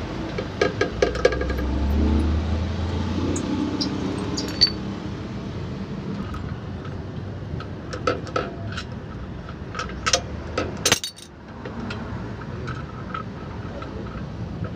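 Steel wrench clicking and clinking on the brake shoe adjuster of a Mitsubishi Fuso truck's rear drum brake as the adjuster is tightened: scattered, irregular metallic clicks, with one sharper knock about ten seconds in. A low rumble sits under the first few seconds.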